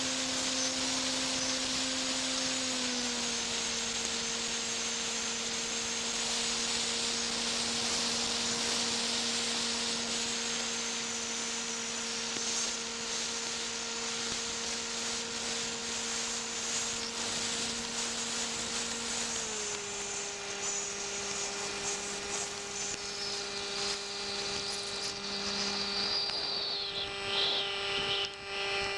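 Model aeroplane's motor running as a steady hum, dropping in pitch about three seconds in and again well past the middle as the throttle is eased, under a loud rushing hiss of airflow and rain on the onboard microphone. Near the end a high whine slides down in pitch.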